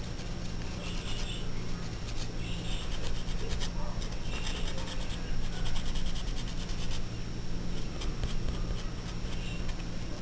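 Nail buffer block rubbing back and forth over a fingernail in short scratchy strokes, smoothing the base coat over a glued tissue-paper patch on a broken nail. A steady low hum runs underneath.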